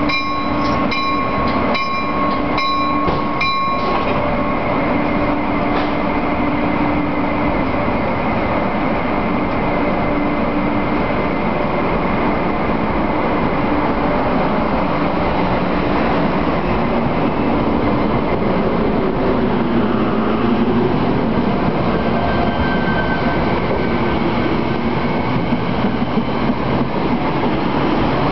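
NJ Transit Comet V passenger coaches rolling past on the rails as the train, pushed by an ALP-44 electric locomotive at the rear, pulls out of the station: a steady, continuous rumble of wheels and carriages. Over the first four seconds or so, an electronic beep repeats about twice a second, then stops.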